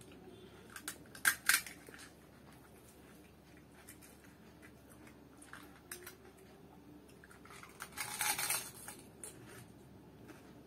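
Crisp puchka (pani puri) shells cracking: a few sharp crackles about a second and a half in, and a longer crunching noise at about eight seconds.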